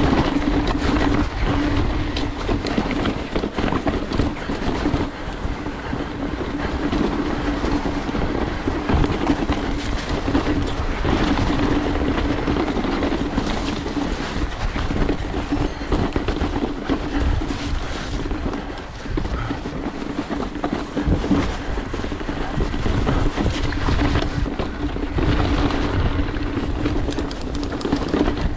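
Mountain bike riding down a rough dirt trail: tyres rolling over dirt and rocks and the bike rattling and clattering without a break, with a steady buzz throughout.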